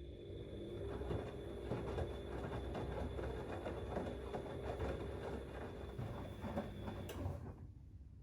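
Siemens Extraklasse XLS 140 A washing machine turning its drum during a wash: a steady motor whine under the irregular tumbling of the wet load of cleaning rags. It stops about seven seconds in with a click.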